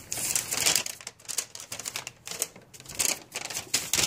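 Crisp, irregular rustling and crackling of handling noise, with a folded paper instruction sheet picked up near the end.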